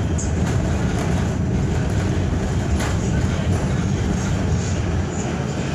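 R46 subway car heard from inside while running: a steady low rumble of wheels on rail and traction motors, with a few sharp clicks from the track.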